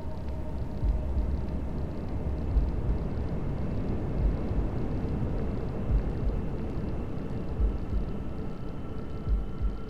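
Steady white-noise hiss with a faint hum, over a slow recorded heartbeat: a low thump about every second and a half to two seconds, some of them doubled.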